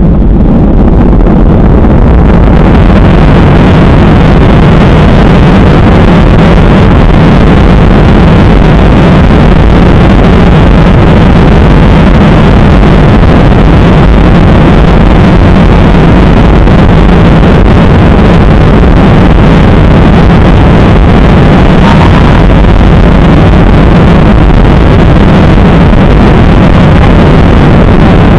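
Airliner engines running at takeoff power, heard loud from inside the cabin as a steady rumble and rush. The sound grows brighter over the first two seconds, then holds steady.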